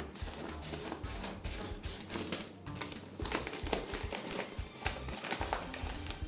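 A mail package being opened by hand: irregular rustling, crinkling and tearing with many short crackles, over quiet background music.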